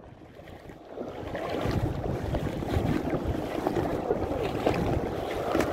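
Shallow seawater sloshing and lapping right at the microphone, with wind buffeting it. The noise builds up about a second in and then stays steady.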